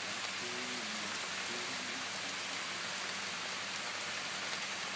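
Steady heavy rain falling in a thunderstorm: an even, unbroken hiss with no thunder in it.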